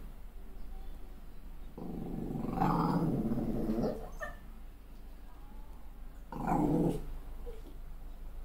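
Malshi (Maltese × Shih Tzu) puppy growling at its own reflection in the mirror. There is a growl of about two seconds starting about two seconds in, and a shorter one about six and a half seconds in.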